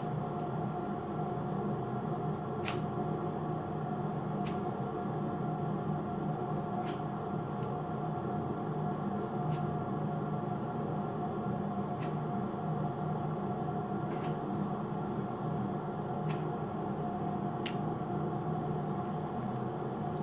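Green underarm hair-removal wax being pressed onto and pulled off the skin, giving short sharp clicks every couple of seconds. Under it runs a steady hum with a constant tone.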